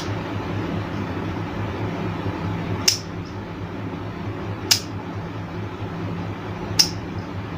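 Three sharp clicks, about two seconds apart, from the table fan's push-button switch unit being handled during repair, over a steady low hum.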